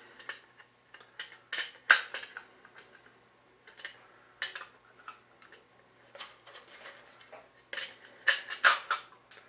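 Irregular sharp clicks and light plastic-and-metal clatter, with a quick cluster near the end, from a Hornady hand priming tool being handled as the cover is fitted back onto its primer tray.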